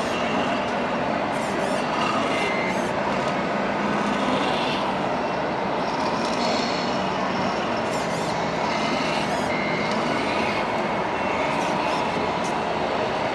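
Scale RC trucks' sound modules playing diesel truck engine sounds, with a few short electronic beeps, over the steady hubbub of a busy hall.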